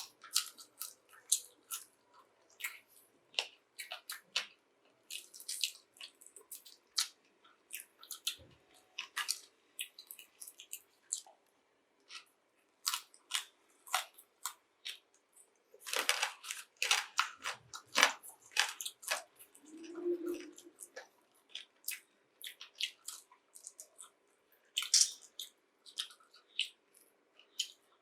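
Close-up chewing and biting into crispy air-fried chicken wings: irregular sharp crunches, busiest about two-thirds of the way through.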